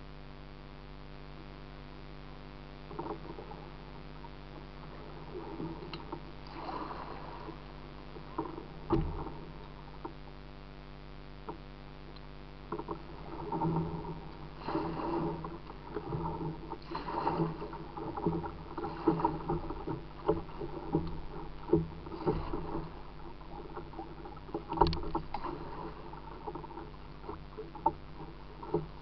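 Water splashing and gurgling against a kayak's hull as it runs through shallow, rippling creek water, heard close up from the hull; the splashing starts a few seconds in and grows busier partway through. A few sharp knocks cut through it, the loudest about nine seconds in and again near the end.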